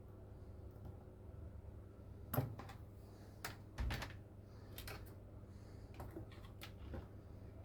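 Scattered light clicks and knocks of tools being handled on a workbench, a few irregular taps with the loudest about two and a half and four seconds in, over a steady low electrical hum.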